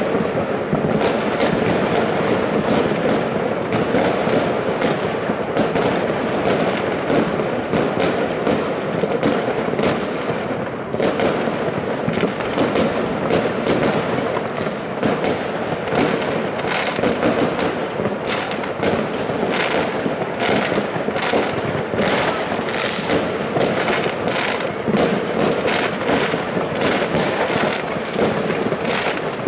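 Many New Year's fireworks going off at once across a city: a constant wash of overlapping distant bangs with sharper cracks and pops throughout, coming thicker in the second half.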